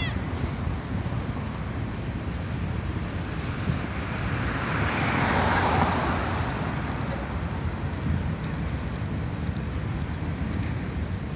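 Steady low rumble of road traffic and a freight train crossing a bridge. A car passes close, swelling loudest about five to six seconds in.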